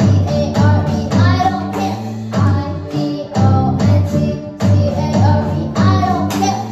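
A child singing lead into a microphone over a live band of two electronic keyboards, an electric guitar and an electronic drum kit, playing a song at a steady beat.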